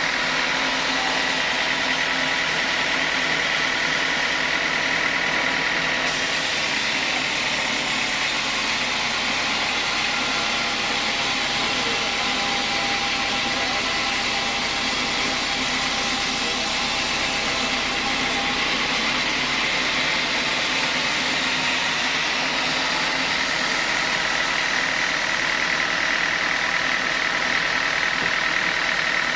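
Sawmill saw running steadily with a high whine. From about six seconds in to about eighteen seconds in, a brighter hiss joins it.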